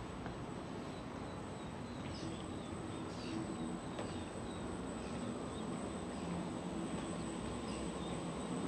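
Harbourside ambience: a steady low rumble with a distant engine drone that slowly grows louder, and faint high bird chirps scattered through it.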